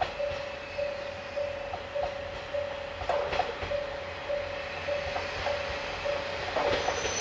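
Diesel train approaching a station with its wheels clacking over rail joints in two quick pairs, about 3 and 6.5 seconds in, under a level-crossing warning bell ringing a steady repeated tone about twice a second.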